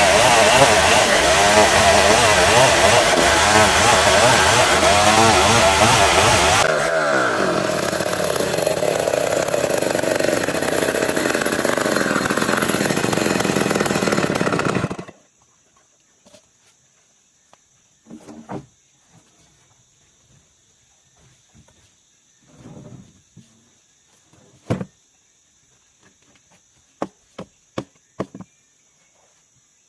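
An old chainsaw running hard while sawing dense ulin ironwood. It eases to a lower pitch about seven seconds in, then shuts off suddenly about halfway through. A few faint knocks and clicks follow.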